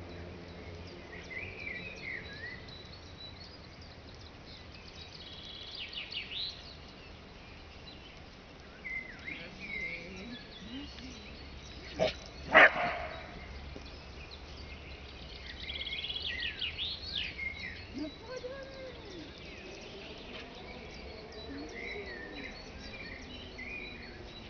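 Birds chirping now and then over a steady outdoor background, with a dog giving a short pair of loud barks about twelve seconds in.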